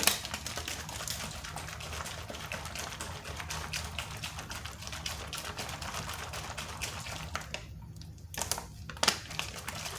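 Capped plastic water bottle holding rabbit droppings and water being shaken to mix a liquid fertilizer: a fast, continuous rattle of clicks with sloshing that stops about seven and a half seconds in, followed by a couple of single knocks.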